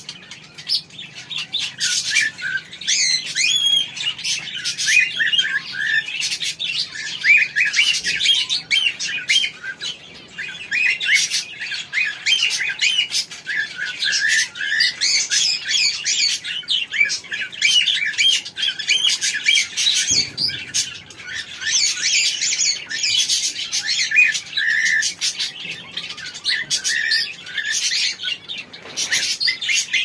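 Cockatiels chirping in a steady stream of short, high calls.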